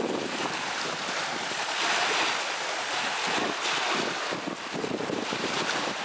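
Wind rushing on the microphone with the wash of lake waves on the shore, a steady noise that rises and falls.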